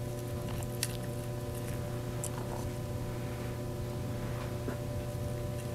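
Quiet workshop room tone with a steady electrical hum, and a couple of faint small clicks from gloved hands handling a small wooden part and an epoxy stir stick.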